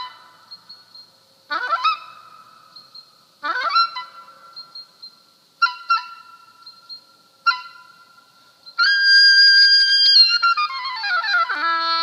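Oboe played solo: five short, sharply attacked notes about two seconds apart, each fading quickly. Then, a little before the end, a long loud held high note that breaks into a quick falling run of notes.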